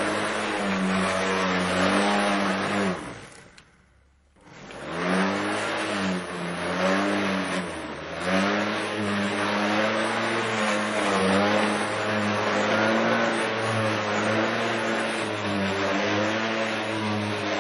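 Lawn mower engine running as a lawn is mowed, its pitch sagging and recovering every second or so as it takes load. About three seconds in, the sound dies away almost to silence for a second or so, then returns.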